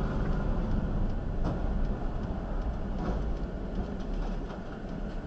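Steady low rumble of a car driving, engine and tyre noise together.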